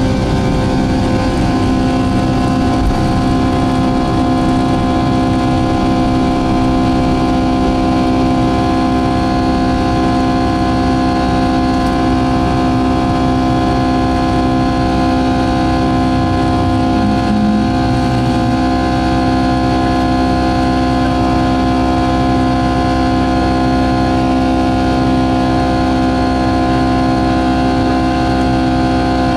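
Boeing 757-200's Pratt & Whitney PW2000 turbofan at takeoff thrust, heard from inside the cabin beside the wing: a loud, steady drone with several held whining tones over a constant rumble, through the takeoff roll, liftoff and climb-out.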